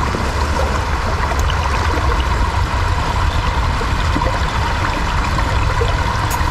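Small brook trickling steadily over rocks.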